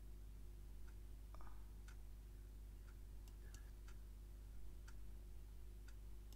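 Faint, regular ticking, about one to two ticks a second, over a low steady hum.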